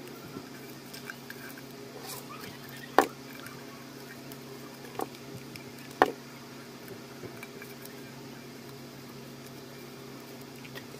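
Handling noise from a paper-wrapped tin can being turned in the hands: light paper rustling with two sharp clicks about three seconds apart and a softer one between them, over a steady low hum.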